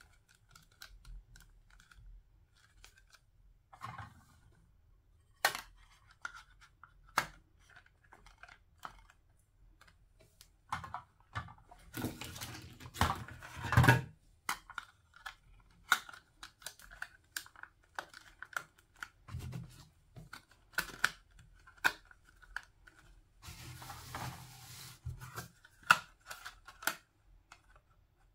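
Hard plastic play-food pieces clicking and tapping against each other as they are handled and stacked into a toy sandwich. The clicks are scattered and sharp, with two longer stretches of rubbing noise, one about halfway through and one near the end.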